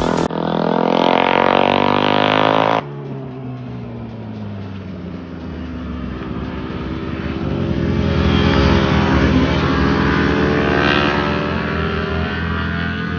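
Motorcycle engines running and revving, in pieces joined by an abrupt cut about three seconds in; the engine pitch drops, then climbs as it gets louder, loudest about two-thirds of the way through.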